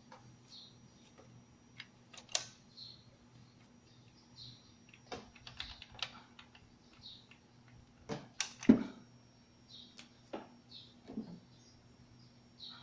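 Scattered light clicks and taps, the loudest a little past the middle, over a faint steady electrical hum, with birds chirping softly now and then.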